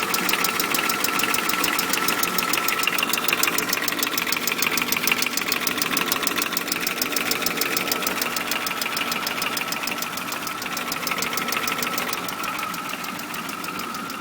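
BMW car engine running with a rapid, even ticking or tapping over it. The cause is unknown to the owner, whose engine also has a disconnected vacuum line and an unsteady idle. The sound gets somewhat quieter near the end.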